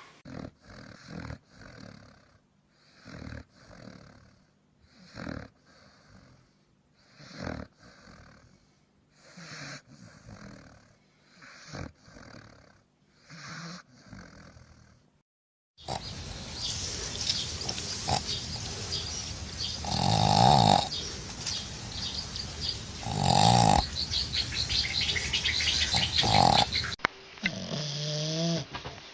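Dogs snoring. First come soft, regular snores, in-and-out breaths about once a second. After a sudden cut, a louder snore comes about every three seconds over steady background noise.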